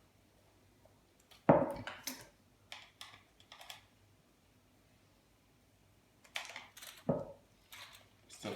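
Scattered clicks and clattering knocks of hard tools and metal parts being handled and set down while a scrap appliance is taken apart, with a sharp knock about a second and a half in and a cluster of clatters near the end.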